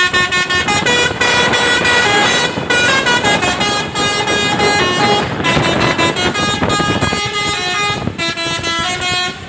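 The 'telolet' multi-tone musical air horn of the ALS 103 New Fortuna bus, playing its Pakistani-style tune: a run of held notes stepping up and down, broken by short pauses every second or two.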